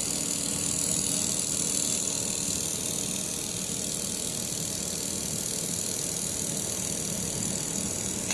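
Air-cooled handheld laser welder with wire feed running a weld pass: a steady hiss over a low hum, which cuts off suddenly at the very end.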